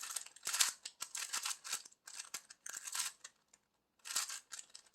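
3x3 Rubik's Cube being twisted quickly by hand to scramble it: a run of irregular plastic clicks and rasps from the turning layers, pausing briefly near the end.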